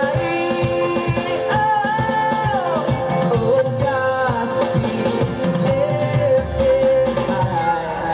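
Live worship band music: a held melody line with long sustained notes over a steady drum beat and guitars.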